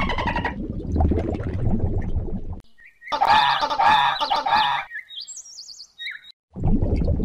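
Low, churning underwater water noise for the first couple of seconds. After a short gap come about four harsh, pitched bird squawks in quick succession, then a few faint high chirps.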